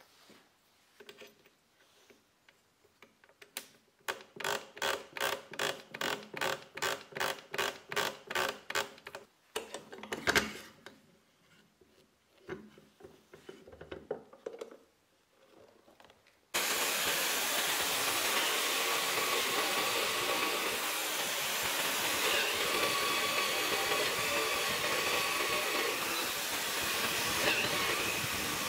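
A quick run of sharp clicks, about three a second, then a few scattered knocks. About halfway through, a Bosch bench drill press and a dust extractor start suddenly and run together, a loud steady hiss with a whine, as the bit bores into the wood.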